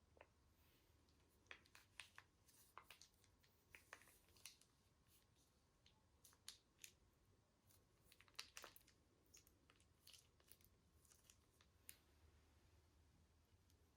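Slime being mixed and worked by hand: faint, irregular sticky clicks and crackles.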